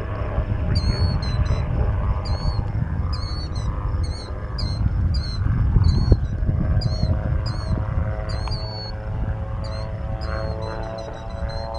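Titanium Explorer gyroplane flying overhead at a distance, its engine and propeller droning as a steady hum that comes through more clearly in the last few seconds, over a gusty low rumble. A short high chirp repeats two or three times a second.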